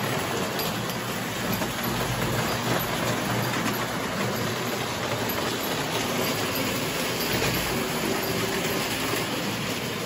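Wind-up toy train running on a toy layout's metal track: a steady, even running noise of the clockwork motor and wheels that doesn't let up.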